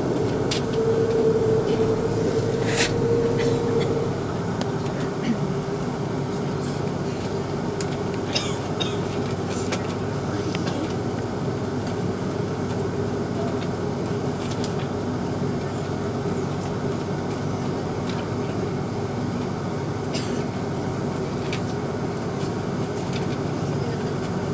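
Airbus A330-200 cabin noise while taxiing: a steady hum and rush of the jet engines and cabin air, with a steady whine that is louder for the first four seconds. Occasional light clicks and rattles sound through it.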